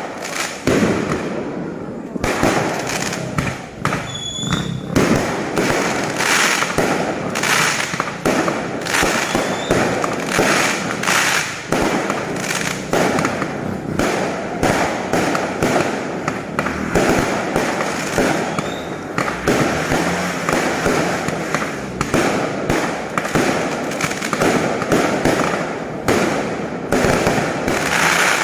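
Fireworks and firecrackers going off in a dense, unbroken barrage of bangs and crackles, with a few short whistles among them.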